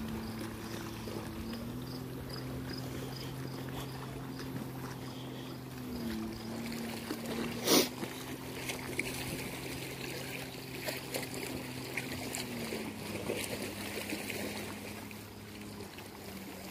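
Motorboat engine droning steadily across the water, its pitch rising about two seconds in, dipping briefly around six seconds and falling again near thirteen seconds. A single sharp knock about eight seconds in.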